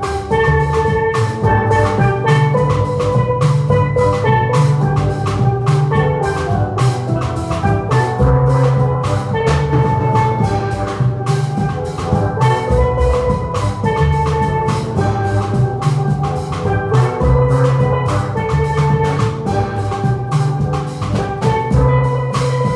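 Live band playing a song: a melody of short, quickly fading pitched notes over a steady drum beat.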